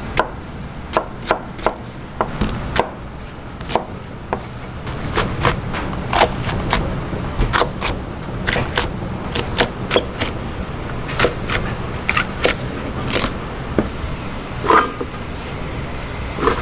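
Large kitchen knife chopping onion and red chili peppers on a wooden cutting board: quick, irregular sharp knocks of the blade hitting the board, over a steady low hum.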